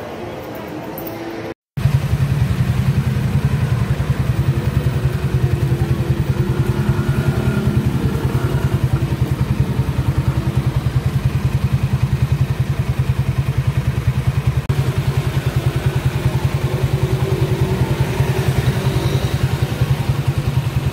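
Tricycle's motorcycle engine running with a steady, rapid, even pulsing, heard from inside the sidecar. It starts abruptly about two seconds in, after a brief stretch of indoor crowd ambience.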